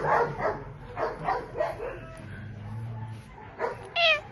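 Dogs barking in short repeated bursts for the first couple of seconds, then a pause, and near the end a single high yelp that falls in pitch.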